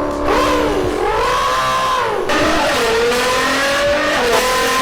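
A man imitating a car engine revving with his mouth, one continuous sound whose pitch swings up and down with an abrupt jump partway through, like an engine revving through gears.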